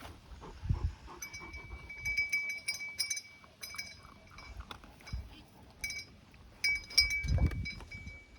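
Repeated metallic clinking with a high ringing tone at one steady pitch, with sharp clicks and a few dull thumps as the dogs go at spilled food or treats.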